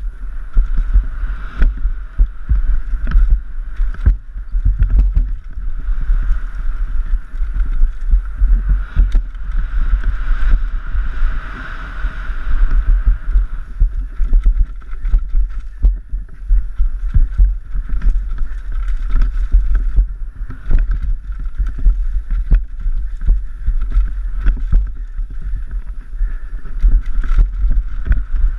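Giant Glory downhill mountain bike descending a rough dirt trail, heard through a helmet-mounted GoPro Hero 3 Black: heavy wind rumble on the microphone with constant rattles and knocks from the bike and tyres over the ground.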